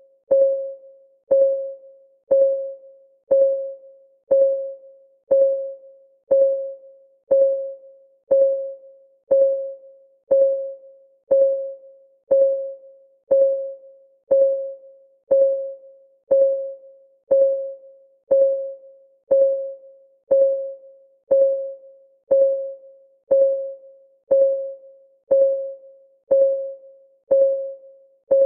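Clock ticking sound effect of a countdown timer: an even tick once a second, each tick a sharp click with a short pitched ring that fades before the next.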